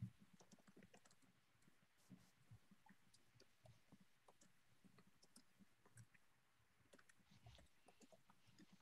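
Near silence: room tone with faint, scattered, irregular clicks of fingers working a computer.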